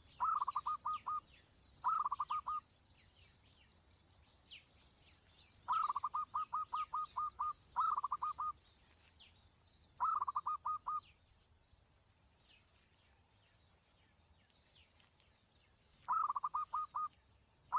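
A bird calling in short bursts of fast, evenly repeated notes, seven bursts in all with pauses between them. Faint thin high chirps and a steady high whine run underneath, and the whine stops about eight seconds in.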